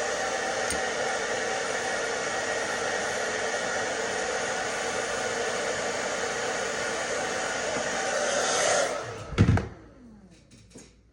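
Handheld hair dryer blowing steadily, switched off about nine seconds in, then a single loud thump and a few light clicks.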